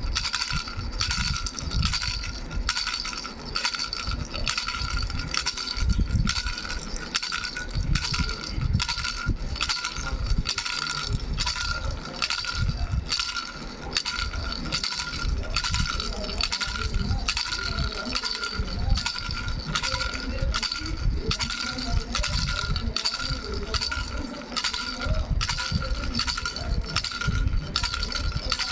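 Three-bell baby rattle shaken without pause, the bells jingling in rapid, uneven strokes over a steady ringing tone, with dull low knocks from the handling.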